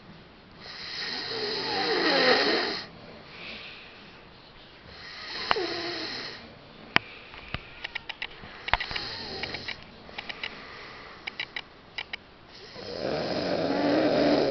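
A man snoring in his sleep, a rasping breath swelling and fading about every four seconds, loudest near the start and the end. Short sharp clicks come in the middle, between the snores.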